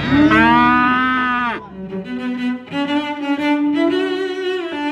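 A cow moos once, loud, for about a second and a half, the call sagging in pitch as it ends. Background music of bowed strings then takes over.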